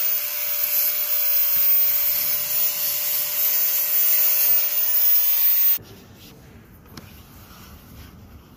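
Steady harsh scraping hiss with a faint held tone from a clear plastic sheet being worked by hand, cut to replace the instrument cluster's broken glass. It stops abruptly about six seconds in, leaving only faint handling sounds and a light tap.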